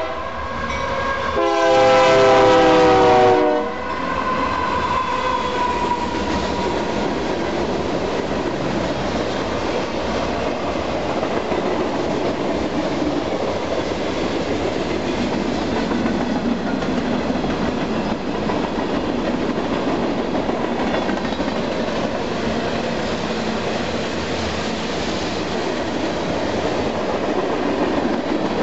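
Union Pacific freight locomotive's air horn sounding one long blast of about two seconds near the start, its pitch sinking slightly as it passes. Then the freight cars roll steadily past, the wheels clacking over the rails.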